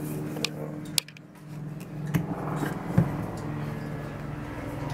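Kitchen handling sounds: a few sharp clicks and knocks as things are picked up and set down on a stone countertop, the loudest about three seconds in, over a steady low hum.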